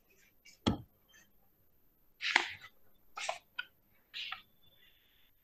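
A sharp knock on the microphone about a second in, then three short breathy bursts from a person close to the microphone.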